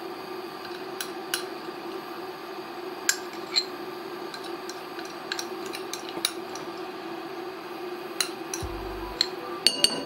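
A spoon clinking and scraping against a bowl as mustard paste is spooned in, with scattered sharp clinks over a steady hum.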